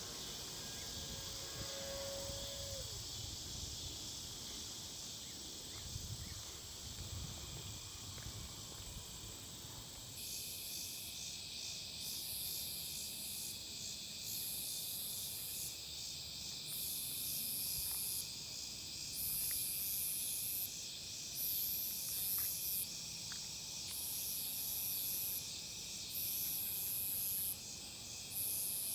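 Evening chorus of insects: a steady high trilling, joined about ten seconds in by a louder, very high buzzing that comes in rhythmic pulses of about a second each.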